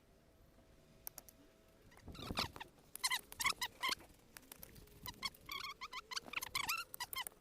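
An animal giving a series of short, high chirping calls, starting about two seconds in and repeating quickly to the end.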